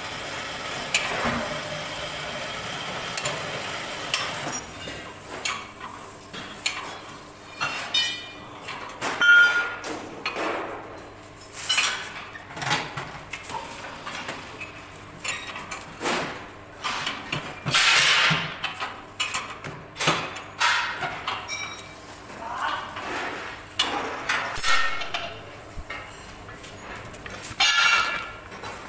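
Irregular metallic clanks and knocks, about one or two a second, some ringing briefly: a spanner and steel fittings knocking on the bearing mount of a welded concrete mixer drum as its bolts are worked. For the first few seconds there is only a steady hiss.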